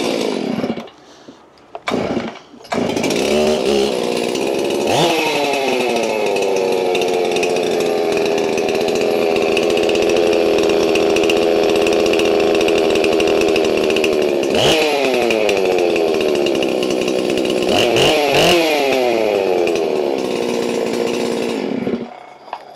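Stihl MS361 two-stroke chainsaw, rebuilt with a new ported piston and an open muffler with its baffle removed, is pull-started and catches about three seconds in. It warms up at idle, with three quick throttle blips that fall back to idle, and is shut off near the end.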